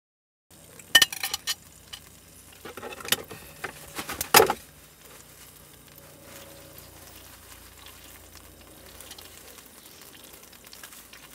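A few sharp clicks and clatters of a fork and plate being handled, the loudest about four seconds in, over a faint steady sizzle from a frying pan.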